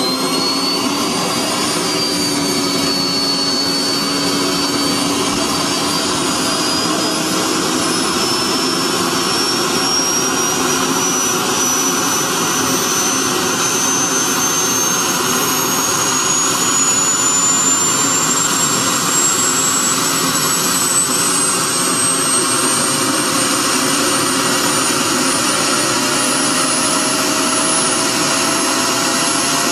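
Small turbine jet engines of a large radio-controlled SR-71 model running: a steady rushing with a high whine that holds, then climbs slowly in pitch as the turbines spool up. A second, lower whine starts rising near the end.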